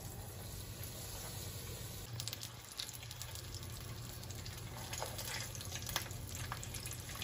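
Breaded tilapia fillets frying in shallow hot oil in a frying pan. A soft, steady sizzle with scattered crackling pops picks up about two seconds in, as the fillets settle into the oil.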